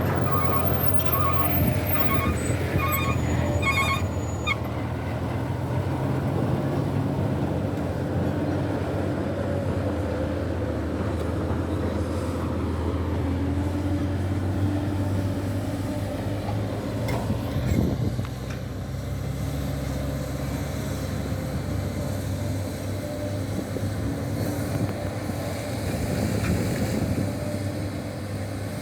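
Sany hydraulic excavator's diesel engine running steadily under load, with a travel alarm beeping about once every 0.7 s for the first few seconds. One short knock sounds a little past the middle.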